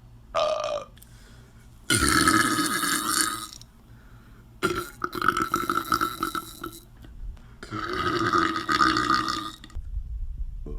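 A series of separate belches: a short one near the start, then three long, drawn-out belches of one and a half to two seconds each, with brief pauses between them.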